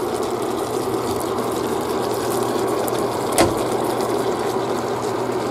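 Chicken, vegetables and sauce sizzling steadily in a heavy cast-iron skillet on an induction cooktop running at high power, hot enough that the cook wants it turned down. A single sharp click sounds about three and a half seconds in.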